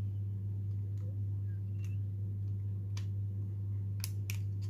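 Several small, sharp plastic clicks as the parts of a handheld electric incense burner are handled and fitted, three of them close together near the end, over a steady low hum.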